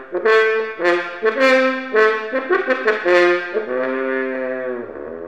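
Brass music: a short trombone and trumpet phrase of quick separate notes, ending on a longer held note that fades out.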